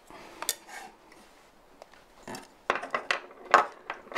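Small metal parts of an electric wine opener clinking and knocking as they are handled and fitted together: a few scattered clicks, then a quick run of clinks about two and a half to three and a half seconds in.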